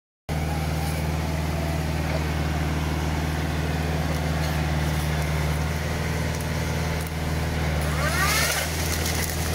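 The tractor powering a Hasatsan H 4000 tree shaker runs at a steady speed with a low, even hum while the shaker's clamp head is brought up to a walnut trunk. About eight seconds in there is a short burst of hiss with rising squeaks.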